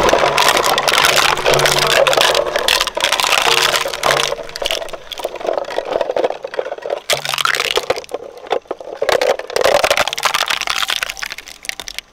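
Twin-shaft shredder crunching a plastic skeleton decoration, with dense cracking and snapping of breaking plastic. The cracking thins into separate bursts after a few seconds and dies away near the end as the last pieces pass through the cutters.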